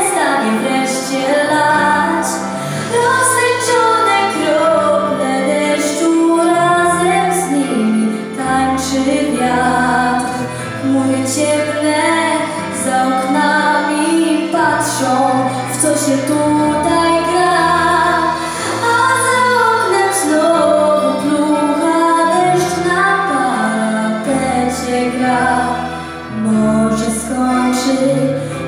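A girl singing a song through a microphone over instrumental accompaniment with sustained bass notes, amplified over the hall's speakers.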